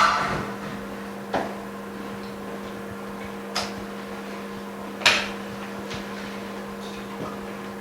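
Sharp clicks and taps of a phone screen part being handled and seated in a metal alignment mold: five knocks, the first and fourth loudest, over a steady electrical hum.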